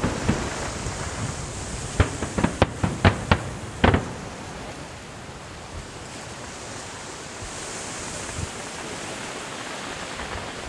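Fireworks shells bursting: a quick series of about seven sharp bangs over two seconds, then a steady wind-like rushing noise with no more bursts.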